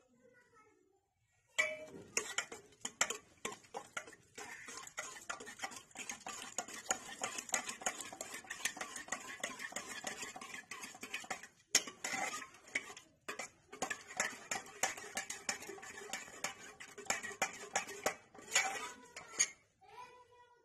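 Steel ladle stirring liquid in a stainless-steel pot, making a rapid, continuous run of clinks and scrapes against the metal. It starts a moment in, breaks off briefly twice midway, and stops near the end.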